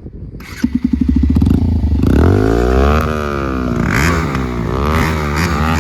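Motorcycle engine with a loud exhaust, picking up about half a second in and then revved up and down several times.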